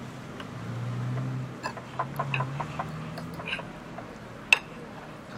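Diner-table ambience: a low engine hum swells and fades about a second in, followed by a quick run of short, high ticks. A sharp clink of dishware about four and a half seconds in is the loudest sound.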